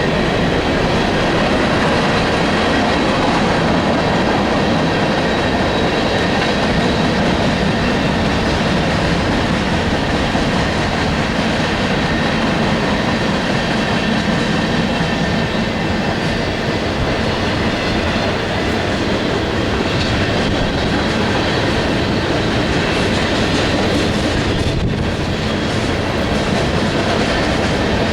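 Freight cars of a long train rolling past at close range: a steady, loud rumble and clatter of steel wheels on the rails.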